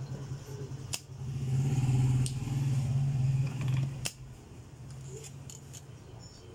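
A capacitor's leads being desoldered from a circuit board with a soldering iron and a spring-loaded solder sucker: a sharp snap about four seconds in as the sucker fires, with a lighter click about a second in. A steady low hum runs under it and grows louder in the middle.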